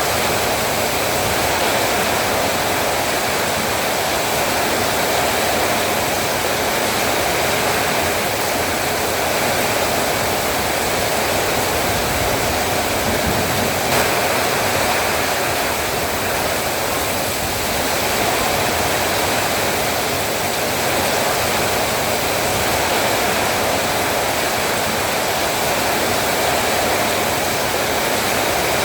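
Heavy rain falling in a steady, even hiss, with one brief click about halfway through.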